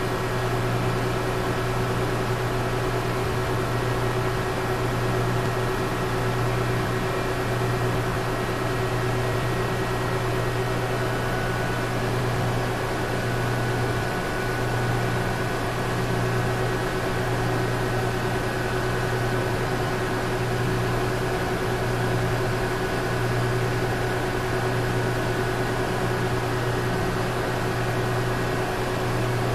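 Water pumps in a hydroelectric power plant running steadily: a continuous machine hum whose low drone swells and eases about every two seconds, with a steady tone above it and a wash of noise.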